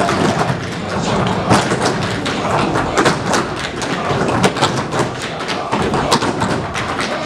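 Tap shoes striking the stage floor as a group of dancers tap in unison: a fast, uneven run of sharp taps and heavier stamps, many strikes a second.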